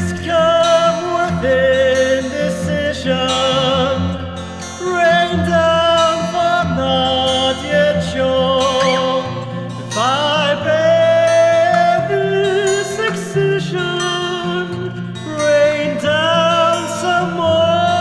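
Instrumental passage of an indie rock ballad: a high lead melody with vibrato, sliding up about ten seconds in, over acoustic guitar and a bass line.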